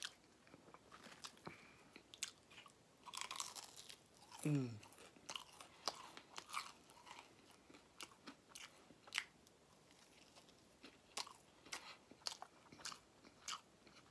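Close-up chewing and biting of battered fried fish and fries: scattered crunches and wet mouth clicks. A short sound falling in pitch about four and a half seconds in.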